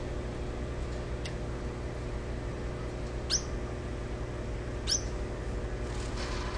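Gouldian finch giving short, high-pitched calls: a faint one about a second in, then two clearer ones about a second and a half apart, over a steady low hum.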